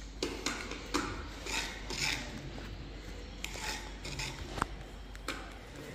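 Flat wooden stick stirring and scraping thick tile-grout paste in a small clay pot, in a run of irregular short scrapes.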